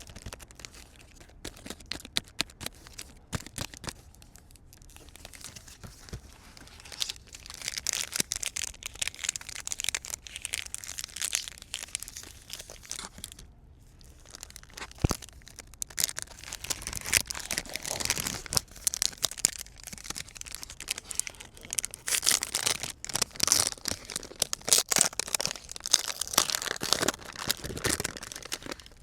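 Card packs being torn open and their wrappers crinkled, in close repeated crackles, with short lulls between busier stretches.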